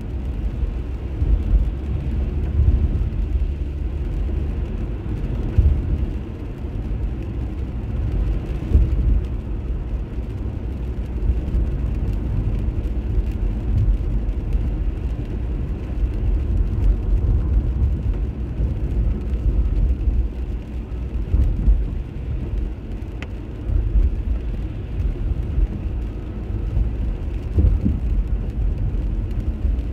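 Inside a moving car's cabin on a rain-wet road: a steady low rumble of engine and tyre noise.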